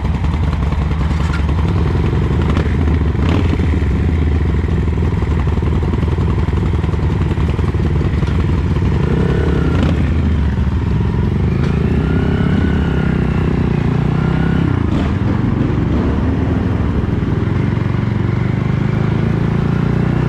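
Engine of a 250cc KTNS RA2 Cyclone cruiser motorcycle running steadily, then pulling away as the bike moves off near the end. About halfway through, a higher whine rises and falls for a few seconds.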